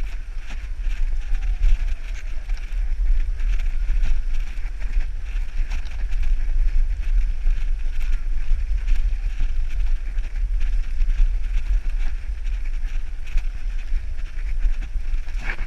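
Wind buffeting the microphone of a camera on a moving road bike: a steady, heavy rumble, with a hiss of tyres on tarmac above it.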